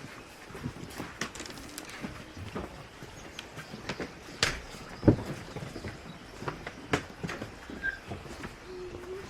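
Footsteps and irregular knocks as someone walks along a path, with one louder thump about five seconds in.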